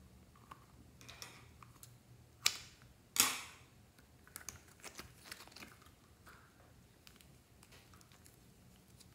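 Rubber skin of a squishy emoji stress ball being pulled and opened by hand, with two sharp loud snaps about half a second apart, the second trailing off. Light clicking and crackling follows as the foam-clay filling is squeezed out.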